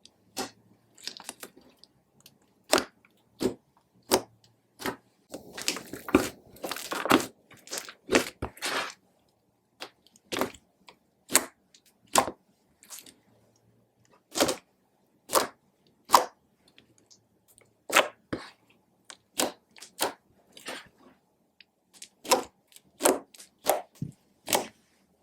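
Clear slime being pressed and folded by hand, its trapped air bubbles popping with sharp clicks about once a second, thickening into a run of dense crackling from about five to nine seconds in.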